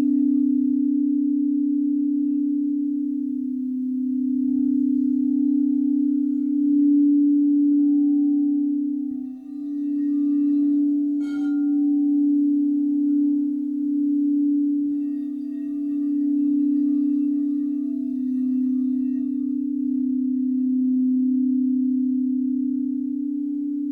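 Crystal singing bowls ringing in a steady, sustained low hum of two close pitches that waver against each other, with fainter higher overtones above. The tone dips briefly about nine seconds in, and a short tap sounds about eleven seconds in.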